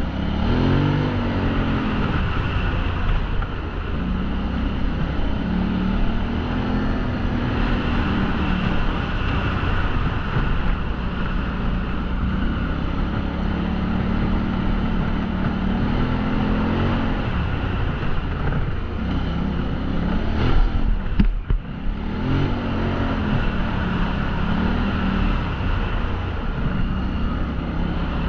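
ATV engine running under way, its pitch rising and falling again and again as the throttle is opened and eased. About two-thirds of the way through it dips briefly, with a few sharp knocks.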